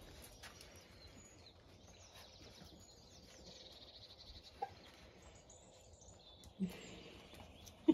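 Faint birdsong in the background, with a few short squeaks and grunts from the puppies, the loudest right at the end.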